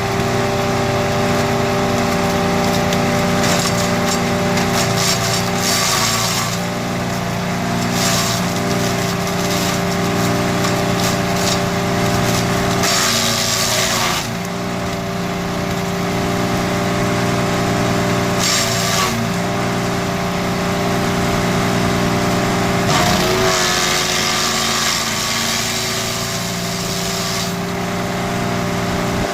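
A wood chipper's 13 HP 192F single-cylinder four-stroke petrol engine runs steadily, with repeated noisy bursts of wood being chipped that last from a second to several seconds each. The engine note dips briefly under load a few times.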